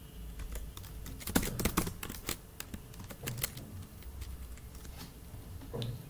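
Computer keyboard typing: irregular keystroke clicks, some sharper and louder than others.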